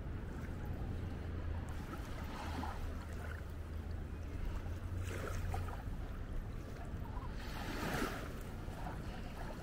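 Sea waves washing ashore, surging three times, the last the loudest. Under the first half runs a low steady drone that stops a little past the middle.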